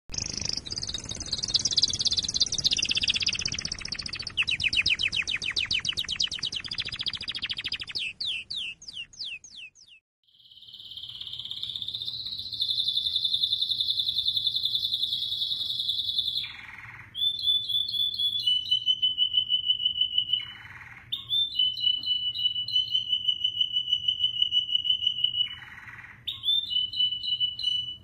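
American Singer canary singing: long rolling trills held at one pitch, broken every few seconds by a short note that swoops down low. Before the song starts, about ten seconds in, there is a loud, noisy opening sound with fast chirp-like sweeps.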